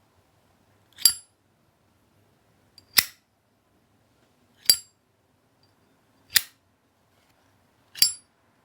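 Genuine 1988 Zippo lighter's hinged lid clicking open and snapping shut in turn, five sharp clicks about a second and a half to two seconds apart.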